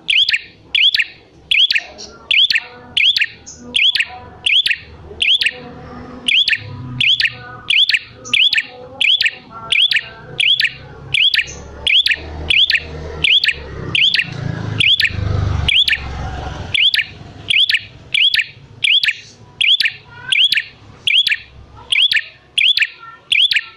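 Prinia (prenjak) calling insistently: one sharp, high call note repeated evenly about twice a second, with a low rumble underneath through the middle.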